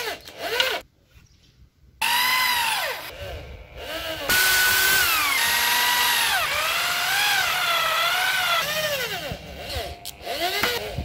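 Corded electric drill running in bursts, its motor whine speeding up and slowing down as the trigger is squeezed and eased. It stops briefly about a second in, then runs again for most of the rest.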